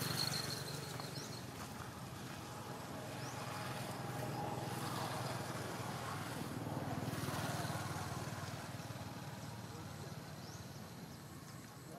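Outdoor background noise: a steady low hum under a broad rushing sound that swells around the middle and fades toward the end, with a few faint, short high chirps.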